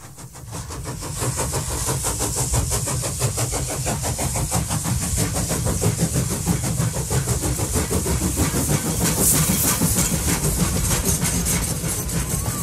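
Train running: a steady, fast rhythmic clatter over a low rumble, fading in from silence at the start.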